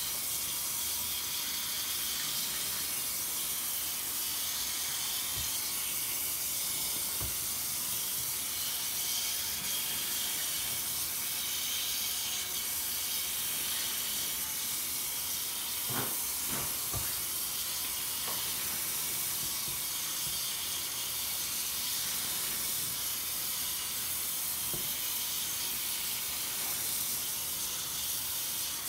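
A soapy sponge squeezed and wrung in a sink full of suds: wet squishing over a steady watery hiss, with a few sharper squishes about halfway through.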